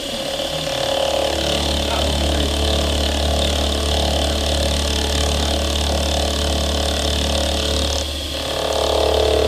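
CNC-converted Grizzly G0704 milling machine running a cut: steady mechanical whir over a constant low motor hum, briefly dropping in level about eight seconds in.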